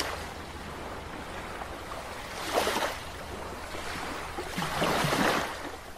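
Whoosh-like swells of noise, like wind or surf, over a steady low hum: two slow rises and falls, about two and a half and five seconds in.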